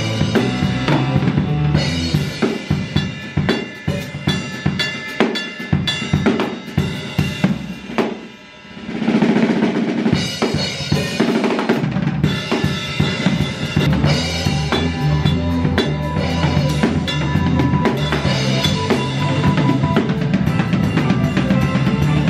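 Acoustic drum kit played with sticks (bass drum, snare and cymbals) as part of a live band with electric guitar and bass guitar. The band drops back briefly about eight seconds in, then comes back in full.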